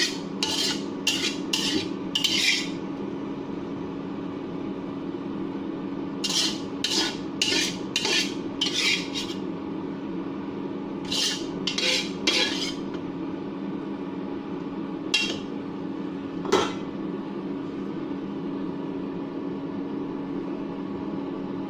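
A spatula scraping and clinking against a wok while stir-frying and scooping out green chillies and meat. The strokes come in quick runs, then thin out to two single scrapes, over a steady low hum.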